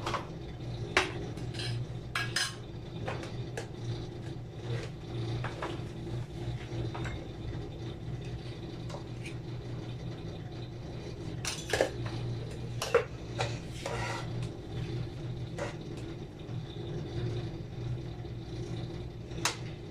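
A slotted spoon knocking and scraping against an aluminium pot of cooked rice: scattered sharp clinks, a few louder ones about twelve seconds in, over a steady low hum.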